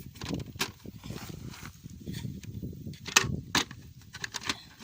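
Plastic smoke alarm being handled: scattered clicks and knocks, with two sharp clicks a little after three seconds in. The alarm does not beep.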